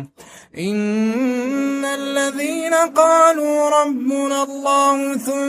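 A man's voice in unaccompanied melodic Quran recitation (tajweed). After a short breath at the start comes one long, ornamented sung line whose pitch wavers and turns.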